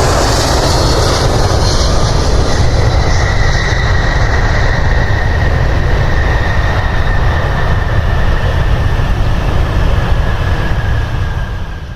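Jet airliner engines running at close range: a loud steady rumble with a thin high whine, dropping away near the end.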